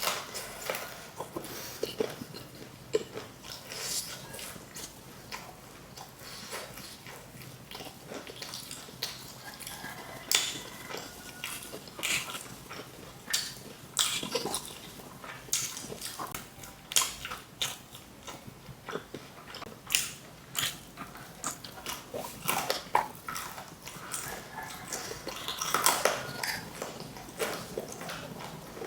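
Close-up eating sounds of crispy fried chicken: irregular crunchy bites into the breaded skin, with wet chewing and smacking between them.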